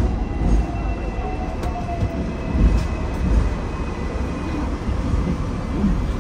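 Hong Kong double-decker tram running along its rails, heard aboard: a steady low rumble of the wheels with a few knocks. A faint whine slides slowly down in pitch over the first few seconds.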